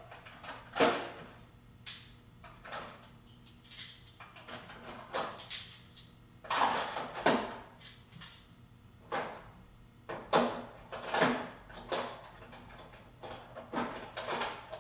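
Metal hand tools clinking and clattering irregularly as they are picked up, sorted through and set down while someone searches for the right size.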